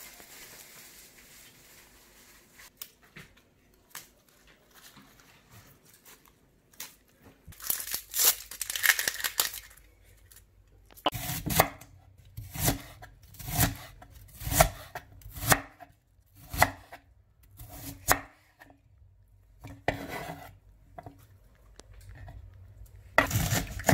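Plastic bag crinkling as leafy herbs are pulled out of it, loudest around eight to ten seconds in. Then a cleaver slicing an onion on a wooden chopping board, with a knock on the board about once a second.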